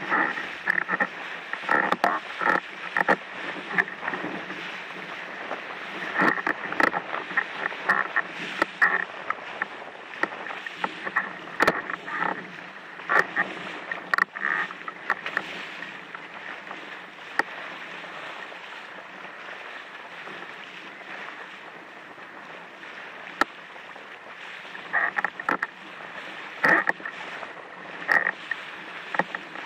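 Water rushing and splashing against a windsurf board as it sails over choppy sea, with irregular sudden louder slaps of chop against the hull over a steady wash of spray.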